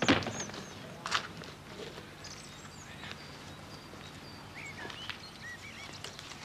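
A heavy thump as a suitcase is set down on the pavement, then a second knock about a second later, with birds chirping now and then.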